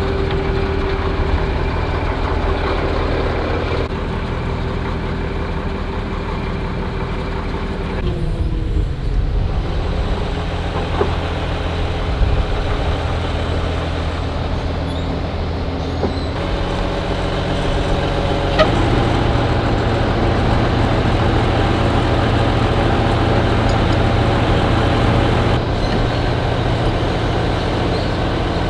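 Heavy diesel engine running steadily, its note shifting a couple of times, with a few sharp metal clinks of the steel recovery rigging being handled.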